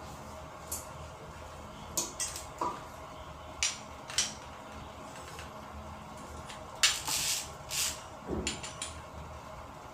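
Scattered light clicks and clanks of small hard parts and tools being handled during plumbing work, the loudest cluster about seven seconds in, over a faint steady hum.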